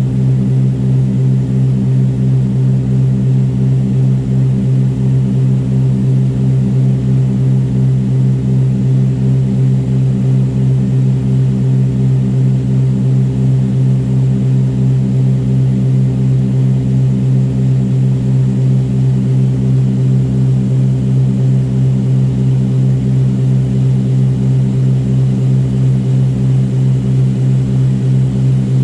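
The twin six-cylinder Continental piston engines and propellers of a Cessna 310R, heard from inside the cockpit in flight: a loud, steady drone with a regular throb a few times a second.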